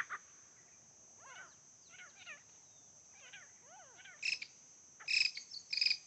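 Grey francolins calling back and forth: soft, arched call notes for the first few seconds, then short, louder call notes about four seconds in and twice more near the end.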